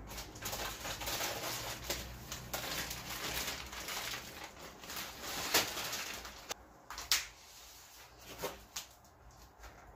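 Plastic food packaging crinkling and rustling as bags of salted edamame and a plastic meat tray are handled, loudest in the first six seconds. A few separate taps follow near the end, as packs are set down.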